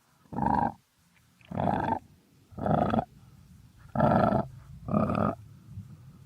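Crocodile grunting: five short grunts, about one a second.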